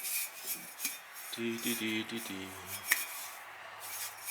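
Glazed stoneware pots clinking and scraping against each other and the kiln shelf as they are handled and lifted out of the kiln after the glaze firing, with a sharp clink about three seconds in.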